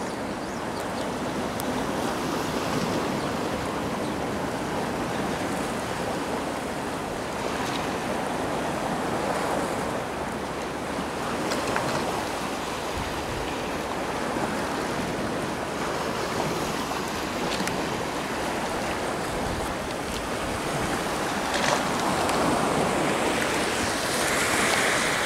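Steady rushing of sea waves washing over a rocky shore, with a few faint clicks now and then.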